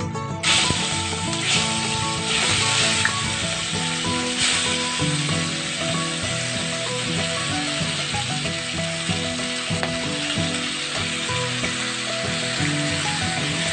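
Chicken stomachs and livers frying in hot mustard oil in a kadai: a loud sizzle that starts suddenly about half a second in, swells a few times over the first few seconds, then settles to a steady sizzle.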